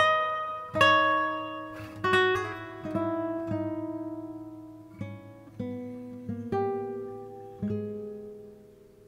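Background music: solo acoustic guitar picking single ringing notes that thin out and fade toward the end.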